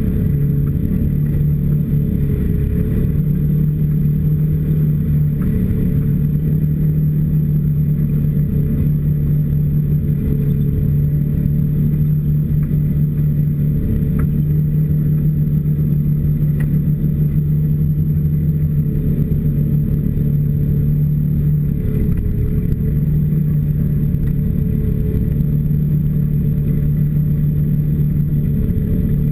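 Snowmobile engine running steadily under way, a low drone with brief dips in pitch now and then as the throttle eases.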